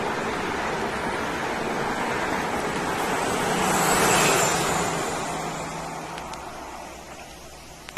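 A vehicle passing by, with a high whistle over its noise. It grows louder to a peak about four seconds in, then fades away.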